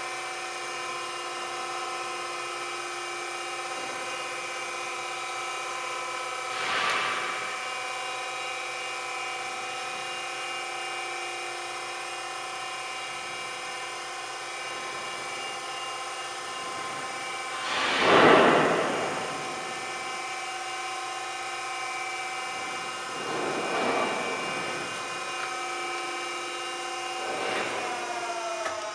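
Norton 8" x 24" hydraulic surface grinder running idle, its motors giving a steady, many-toned electric hum-whine. Four brief louder swells of noise rise over it, the loudest about two-thirds of the way through.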